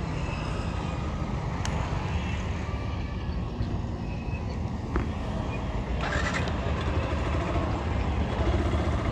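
Motorcycle being ridden on a road: a steady rumble of engine, tyres and wind on the microphone.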